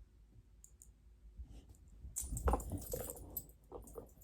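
A dog moving about: irregular clicking and scuffling that starts about halfway through, mixed with low thumps.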